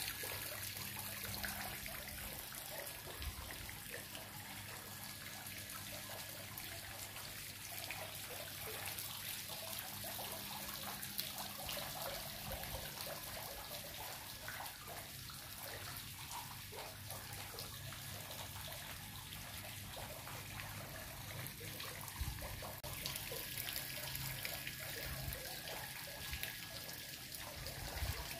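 Water trickling steadily from a spout into a courtyard pool.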